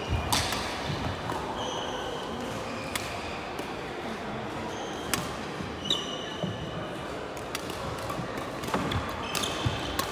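Badminton doubles play in a sports hall: sharp racket-on-shuttlecock hits and short shoe squeaks on the wooden court floor, echoing off the hall walls.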